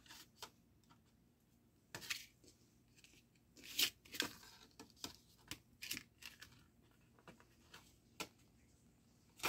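Faint handling noise of a cardboard CD sleeve and a compact disc: scattered light clicks and short scraping rustles as the disc is slid out of the sleeve on a tile floor, the loudest scrapes about four seconds in.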